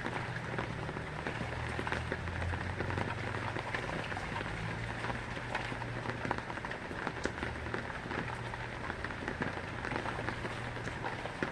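Heavy rain falling steadily, with many individual drops ticking on a hard surface, over a steady low hum.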